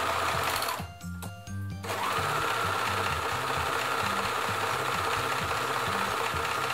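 Juki MO735 overlocker running steadily at speed, stitching through fabric. It stops briefly about a second in, then starts up again and runs on.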